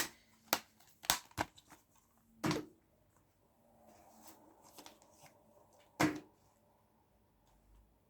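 Plastic Blu-ray disc cases being handled: a cluster of sharp clicks and snaps in the first three seconds, a soft rustle, then one more click about six seconds in.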